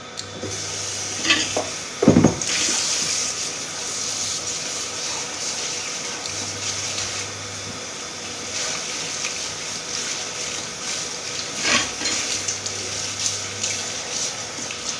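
Kitchen work: pots and dishes clinking, with one loud knock about two seconds in, over a steady hiss.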